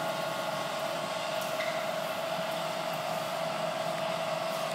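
Steady mechanical hum with a constant mid-pitched tone over an even hiss.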